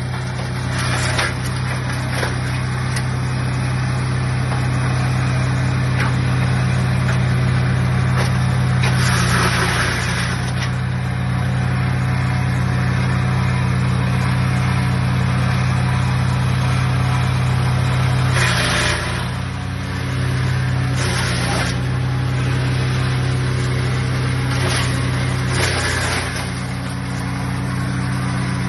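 GreenMech CS80 wood chipper's 12 hp Loncin pull-start petrol engine running steadily at full speed. Several short bursts of louder, rough noise come as branches are fed in and chipped, and the engine sags briefly under the load of one about two-thirds of the way through.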